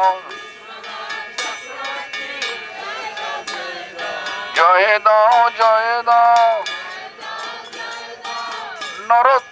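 Devotional call-and-response chanting (kirtan). A man's voice leads loudly through a megaphone, and a group sings the reply more softly in between. The lead comes in about halfway through and again at the very end. Small hand cymbals clink the beat throughout.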